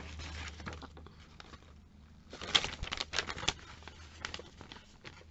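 Glossy catalogue pages being handled and turned by hand: a run of paper rustles and crackles, loudest in a cluster between about two and three and a half seconds in.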